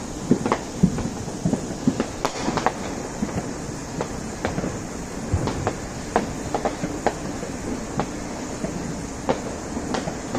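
Consumer fireworks going off around the neighbourhood at a distance: an irregular string of sharp pops and bangs, about two a second, some overlapping, with no let-up.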